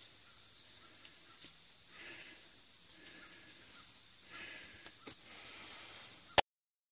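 A steady high-pitched insect trill with a few faint rustles and ticks. About six and a half seconds in, one sharp knock as the camera is handled, then the sound cuts off to silence.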